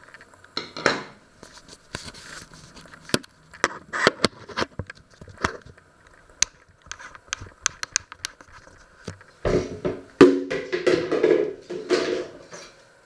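Irregular clicks, knocks and rustling of handling on a wooden kitchen counter: the camera being moved about and kitchen utensils being handled. There is a dull thump about two-thirds of the way in, followed by a louder spell of clattering.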